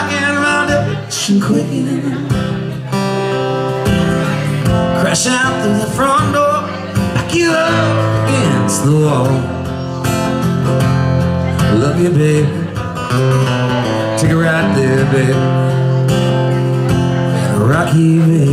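A man singing while strumming an acoustic guitar, a live solo performance.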